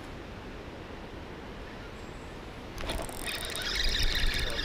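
Spinning fishing reel whirring with a run of clicks as it works line, starting a little under three seconds in and growing louder. Before it there is only a steady low hiss.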